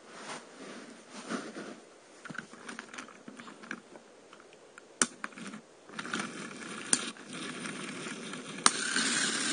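Plastic K'nex pieces and toy karts being handled and set in place on carpet: soft rustling and light plastic clicks, with three sharper clicks about five, seven and nearly nine seconds in. Near the end a louder steady noise comes in.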